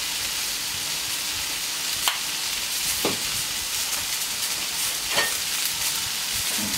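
Diced potatoes and small vegetables sizzling on a hot gas-fired hard-chrome steel plancha: a steady frying hiss, with a few sharp clicks about two, three and five seconds in.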